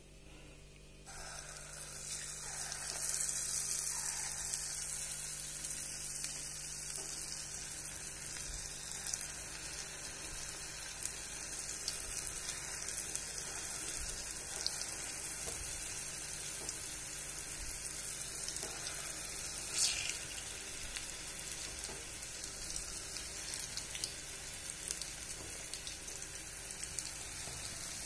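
Idli-batter bondas deep-frying in hot oil in an iron kadai: a steady sizzle that starts suddenly about a second in as the batter is dropped in, loudest a few seconds later. A brief knock about two-thirds of the way through.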